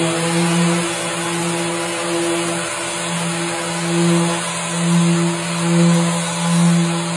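Electric random orbital sander running on a bare wooden desktop: a steady motor hum over the hiss of the abrasive pad on the wood. Its loudness swells and dips about once a second as it is pushed back and forth across the board.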